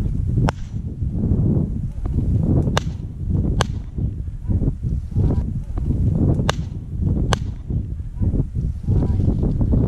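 Footsteps rustling and crunching through dry field vegetation, with wind buffeting the microphone and five sharp snaps or clicks scattered through.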